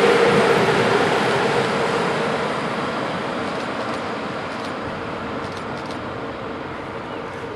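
Freight train of hopper wagons hauled by two DB class 151 electric locomotives rolling away, its wheel and rail rumble fading steadily, with a steady droning tone underneath.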